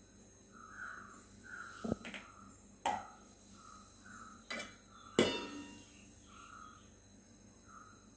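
Stainless-steel lid and vessels clinking and knocking about five times as a pot's lid is lifted and set down, the last and loudest clink ringing briefly. Faint repeated chirping, like crickets, keeps on behind it.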